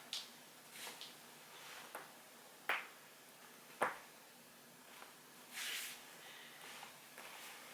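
Human joints being cracked: a series of sharp, separate pops, about six of them, the loudest two a little before and just after the middle. A short hiss-like noise follows the pops.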